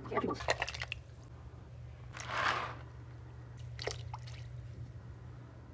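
Quiet kitchen sounds at a pot of beef soup: a few light clicks in the first second, a brief liquid slosh about two seconds in, and another click near four seconds, over a steady low hum.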